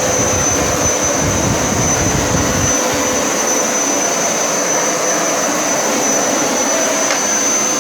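Hoover Power Scrub Elite carpet cleaner running: a steady motor noise with a high-pitched whine, and a deeper rumble for the first three seconds or so. It shuts off at the very end.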